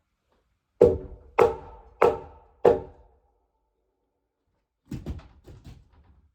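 Four hard blows about two-thirds of a second apart, each ringing briefly, then a quick cluster of lighter knocks about five seconds in.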